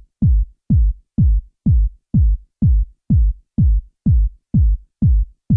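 Electronic kick drum beating alone at a steady pace of about two beats a second, each beat a deep thump that falls in pitch, with silence between the beats.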